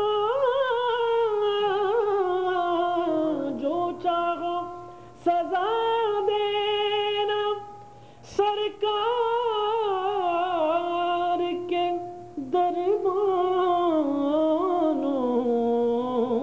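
A man's solo voice reciting a naat, holding long melodic vowels without words. The pitch is ornamented and wavering, with short breaks between phrases, and it sinks lower near the end.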